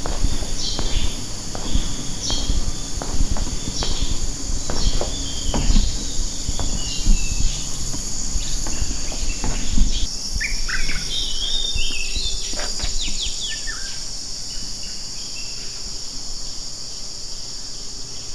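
Forest ambience: a steady high drone of insects with birds chirping and calling, the calls thickest in the middle. Low thumps and knocks sound through the first half, then stop.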